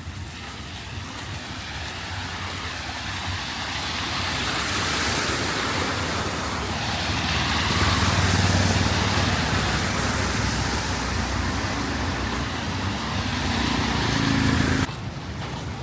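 Motor vehicle traffic on a flooded street: engine hum under a loud hiss of tyres through water, swelling over several seconds and cutting off suddenly near the end.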